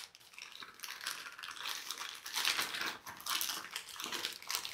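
Thin plastic bag crinkling and rustling in irregular bursts as hands pull a headset out of it.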